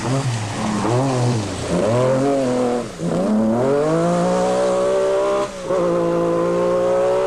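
MG Metro 6R4 rally car's V6 engine revving hard on a gravel stage, its pitch climbing and dropping several times as the driver lifts and changes gear, with short breaks about three seconds in and again about five and a half seconds in.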